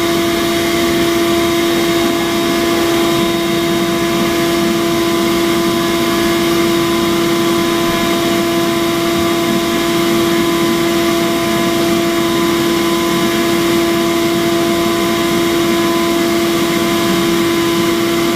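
Skate sharpening machine's motor running steadily, a constant pitched hum with overtones that never changes.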